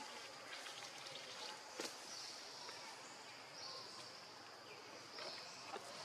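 Faint outdoor ambience: a high insect buzz that comes and goes in stretches, with scattered light clicks and rustles and one sharper click about two seconds in.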